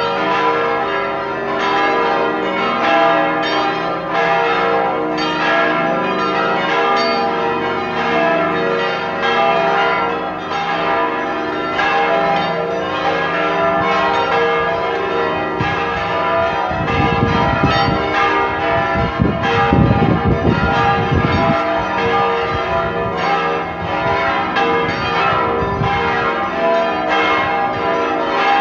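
Full peal of a basilica's church bells, all ringing together, strokes overlapping continuously. It is the call to an evening rosary service a quarter of an hour ahead. A low rumble briefly joins a little past the middle.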